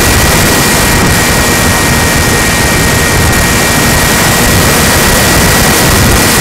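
RC plane's motor and propeller running steadily with a thin high whine, over a loud rushing noise.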